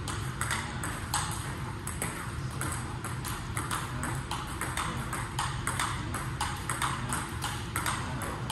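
Table tennis balls struck by paddles and bouncing on the table in a fast multiball drill, short sharp clicks about four a second, over a steady low hum.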